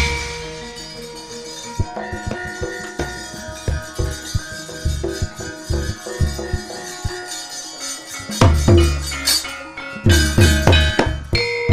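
Javanese gamelan music for wayang kulit: ringing metallophone notes over kendhang drum strokes. The drumming turns loud again near the end, about eight and a half seconds in and once more from ten seconds.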